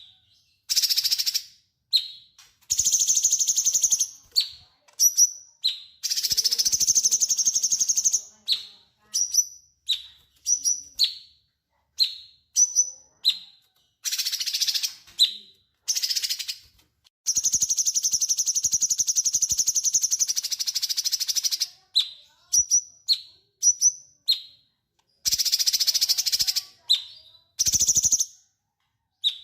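Cucak cungkok singing vigorously. Its song is long, high, buzzy, rattling trills, some lasting up to about four seconds, mixed with short sharp chirps and brief pauses.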